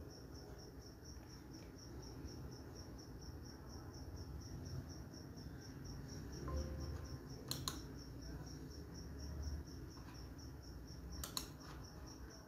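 A cricket chirping steadily, about four high chirps a second, over a faint low room hum. Two sharp clicks come about halfway through and again near the end.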